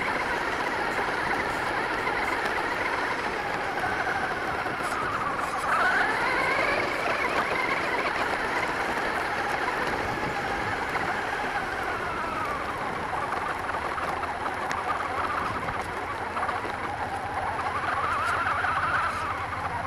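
Radio-controlled monster truck's motor and drivetrain whining from the onboard camera's position, the pitch rising and falling as the throttle is worked, over a steady rush of tyres on gravel.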